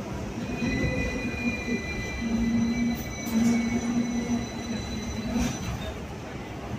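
Hong Kong double-decker electric tram running on street rails: a steady rumble of the car, with thin high squealing tones from the steel wheels on the track and a low hum that comes and goes.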